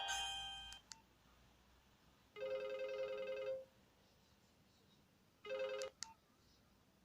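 Nokia 2310 mobile phone speaker playing ringtones: a melodic tone dies away in the first second, then a warbling two-tone trill like an old telephone bell rings for about a second. After a pause, a shorter half-second burst of the same trill cuts off with a click.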